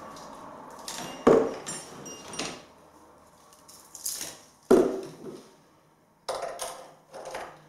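Hard objects being handled: irregular clattering with a few sharp knocks, the two loudest about a second in and near five seconds.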